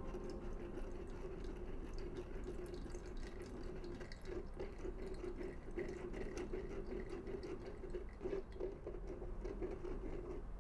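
Citrus juice dripping and trickling through a fine metal mesh strainer into a glass jar, with light scrapes and small clicks of a wooden spoon pressing the pulp against the mesh.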